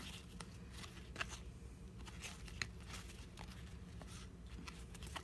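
Faint soft ticks and rustle of glossy trading cards being slid and flipped through by hand, with two sharper clicks, about a second in and around the middle.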